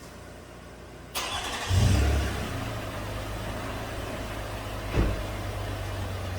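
2008 Toyota RAV4's 3.5 V6 restarted: a short crank at about a second in, the engine catching with a brief rev flare, then settling into a steady idle with no misfire on this start. A single thump near the end.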